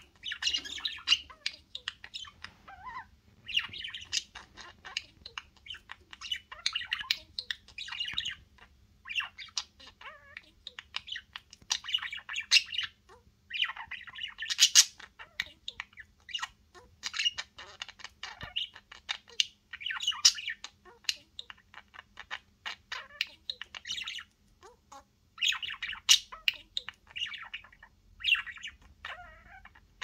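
A pair of budgerigars chattering and squawking at each other in long bursts of fast warbling chirps, with short pauses between bursts. The uploader frames it as an argument.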